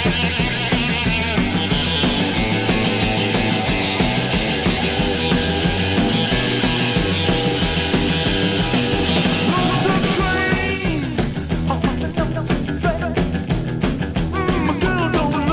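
Rock and roll band recording: electric guitar, bass and drums at a driving beat. About ten seconds in, the dense full-band sound thins out to drums with a bending melodic line over them.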